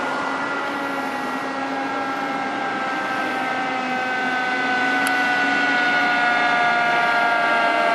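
Federal Q2B mechanical siren on an approaching fire engine, winding down in a slow, steady fall in pitch. It grows louder about halfway through as the truck nears.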